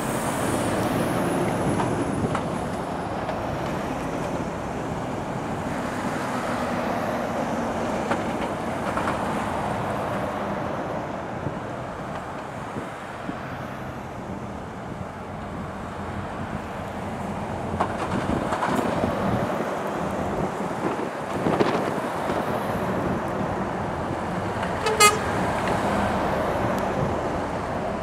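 Heavy lorries running and driving past on the port roadway, with a short single horn toot near the end.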